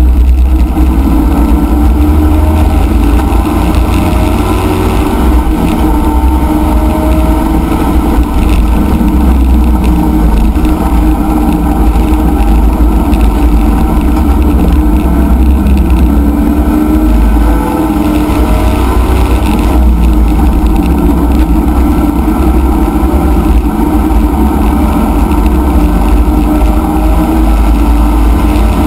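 C5 Chevrolet Corvette race car's V8 engine heard from inside the cockpit, running hard under load through corners and accelerating, with wind and road noise. The level dips briefly a little past the middle before the engine pulls again.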